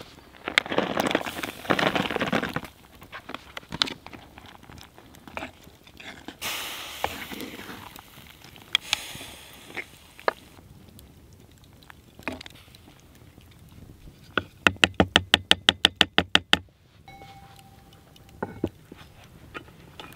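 Campfire cooking at a cast-iron Dutch oven: fresh tortellini tipped into tomato sauce with a noisy splash about a second in, then a wooden spoon stirring. A quick even run of sharp taps comes about three-quarters through, followed by a thump near the end.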